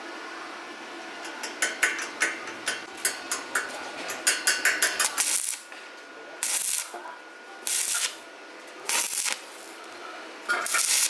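A run of sharp metallic clicks and rattles, coming faster after a few seconds, then four short bursts of hiss about a second apart, each lasting about half a second.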